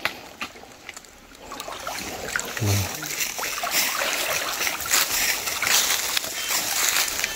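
Shallow muddy stream water splashing and sloshing as a person wades through it and gropes under the surface by hand, quiet at first and growing into steady, busy splashing from about two seconds in.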